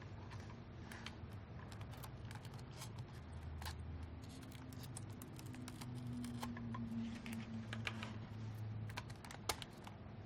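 Scattered small clicks and scratches of hands working on the ventilator's internals, plugs, cables and plastic parts being handled, over a low steady hum. One sharper click near the end.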